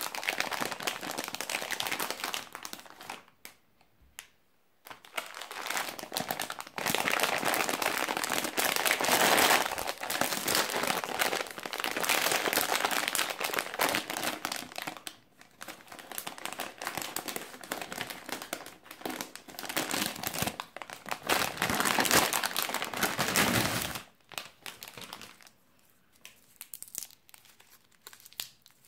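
Plastic sweet bag of nimm2 soft candies crinkling as hands squeeze and handle it, in long stretches with short pauses. About four seconds before the end the crinkling turns fainter and scattered, the small wrapper of a single sweet being handled.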